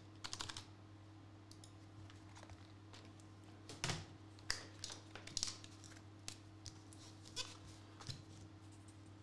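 Keystrokes on a low-profile computer keyboard: a quick run of clicks just after the start, then scattered single taps and knocks, over a faint steady electrical hum.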